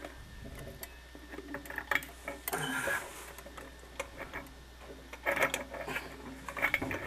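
Small clicks and scraping as a hand turns a threaded fitting on a faucet shank under a sink, with louder rubbing and clatter from about five seconds in. A low steady hum runs underneath.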